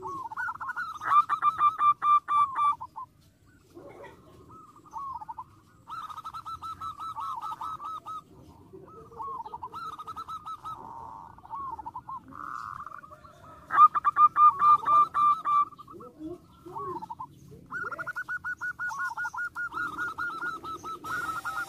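Zebra dove (perkutut) song: four bouts of rapid, staccato rolling coos, each lasting a couple of seconds, with softer single coos between them. The loudest bouts come about a second in and again near the middle.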